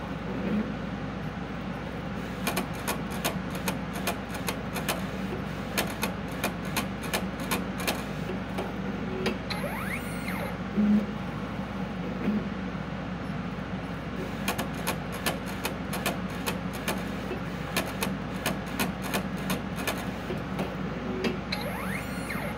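Primera Eddie edible-ink cookie printer running: a steady motor hum with runs of rapid ticking from the print mechanism, and a louder knock about halfway through.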